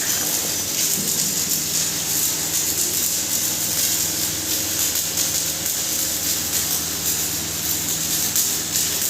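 Turmeric pulverizer (hammer mill) running steadily: a constant rushing hiss over a low, even motor hum.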